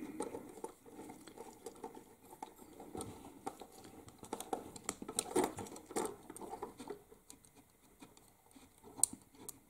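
Small screwdriver working the screw terminals on a circuit board as wires are fastened in, with faint, irregular clicks and scratches from handling the wires and board.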